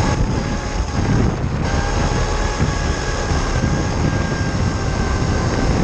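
RC car driving at speed: a steady rumble with a faint, thin motor whine that drifts slightly in pitch.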